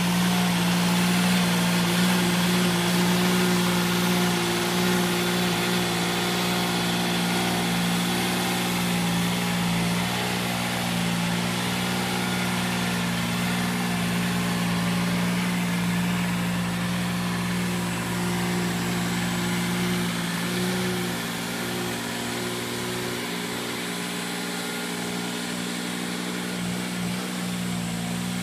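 Dingo mini tractor's engine running at a steady speed while it drives a rotavator through the poultry-house floor litter. It fades a little over the last several seconds as the machine pulls away.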